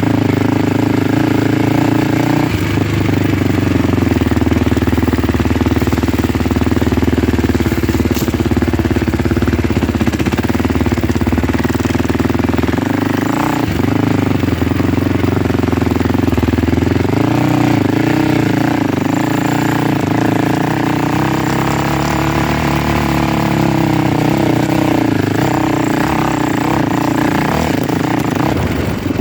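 A vehicle engine runs steadily while being ridden, its pitch rising and falling as the speed changes.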